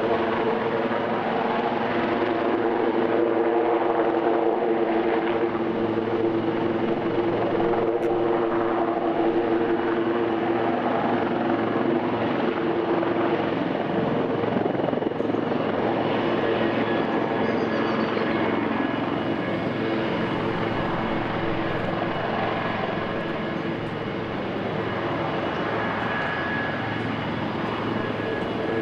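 Wildcat naval helicopter hovering low over a ship's flight deck and touching down, its rotors and twin turboshaft engines running steadily. A steady hum in the sound eases about halfway through as the helicopter settles on the deck.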